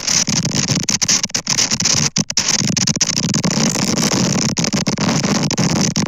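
Storm wind and rain hitting the outdoor camera microphone: a loud, steady rushing noise with brief dropouts, the longest about two seconds in.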